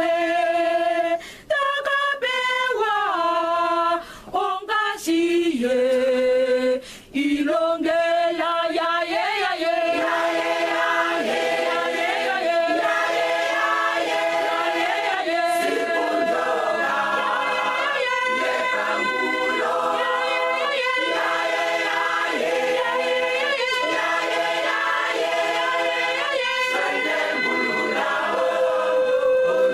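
Large choir singing unaccompanied in several-part harmony. For the first few seconds the phrases have short breaks between them; after about nine seconds the singing becomes fuller and continuous.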